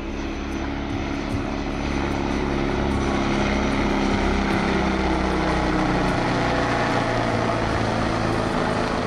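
Agusta A129 Mangusta twin-turboshaft attack helicopter flying past: steady rotor and turbine noise, growing louder over the first few seconds and then holding.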